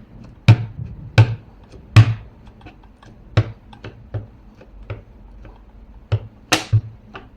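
A rubber stamp knocking down onto the tabletop again and again while stamping the page: about a dozen sharp taps with a dull thud under each, at an uneven pace.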